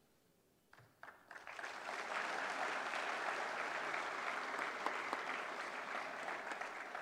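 Near silence, then an audience breaks into applause about a second in, swelling over the next second and holding steady.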